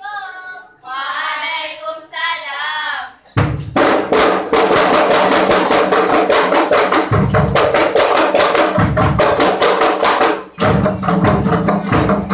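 Two short sung phrases, then from about three seconds in a group of kompang, Malay hand-struck frame drums, starts up together in a fast, dense rhythm of slaps, with a brief break near the end before it picks up again.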